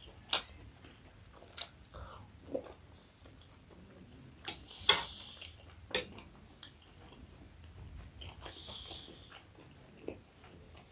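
A person eating momo dumplings close to the microphone: biting and chewing mouth sounds with a few scattered sharp clicks and smacks.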